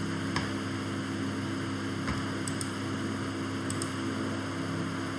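Steady electrical hum and hiss from the recording setup, with a few faint mouse clicks scattered through it.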